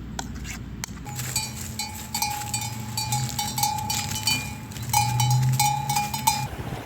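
Metal ringing: rapid, irregular clinks over a steady bell-like tone, starting about a second in and cutting off abruptly near the end.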